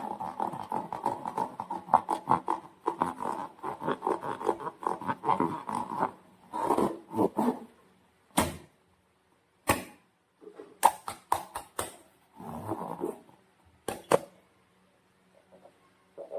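Slime being squished and worked by hand, with dense wet crackling and squelching. It breaks near the middle into a few separate squelches and sharp clicks with pauses between them.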